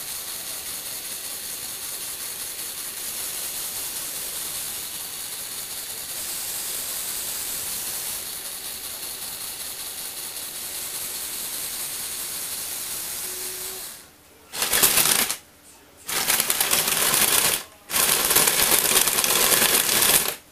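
Lego Technic electric motors and gear train driving a tilting platform: a steady mechanical whir for about fourteen seconds, then four loud bursts of fast gear clatter, each starting and stopping abruptly as the motors are switched on and off.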